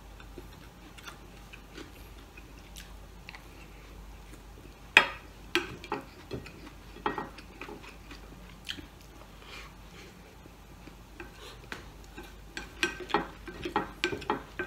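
Chewing, with scattered clicks and taps of a spoon against a plate: a sharp one about five seconds in and a quick run of them near the end.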